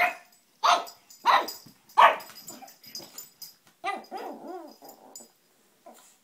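Pug puppy barking four times in quick succession, then a quieter, wavering whine lasting about a second and a half. The puppy is protesting at a heart-shaped bowl it hates.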